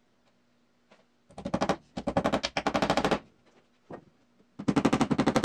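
A hand-held power tool rattling with rapid, evenly spaced hammering impacts, in three bursts: a short one about a second in, a longer one around two to three seconds, and a third starting about four and a half seconds in.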